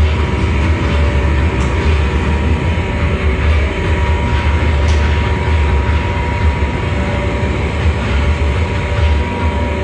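Live amplified electric guitar and electronics playing a loud, dense wall of distorted drone with heavy bass and a steady high tone held through it.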